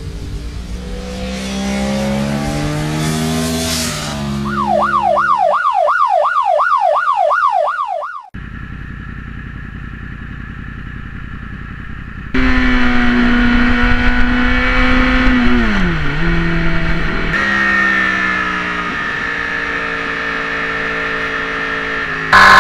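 Motorcycle engines revving and running in a string of spliced clips with abrupt cuts between them. A few seconds in, a fast warbling siren-like tone rises and falls about three times a second; later one engine note drops sharply.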